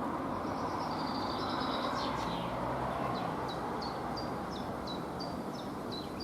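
A small bird chirping over and over, short high falling notes about two a second, over a steady background rumble of noise.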